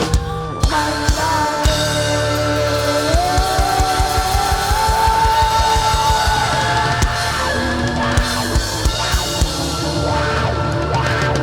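Live rock band playing loud: a lead line holds and bends notes over rapid, fast-repeating kick drum beats.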